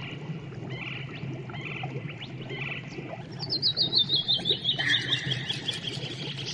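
Outdoor wildlife calls: short chirps repeat about once a second, then about halfway through a bird sings a quick trill that falls steadily in pitch over about two seconds.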